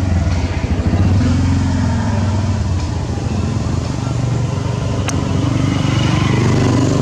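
A motorbike engine running nearby with a steady low hum that drifts slightly in pitch. A single sharp click about five seconds in.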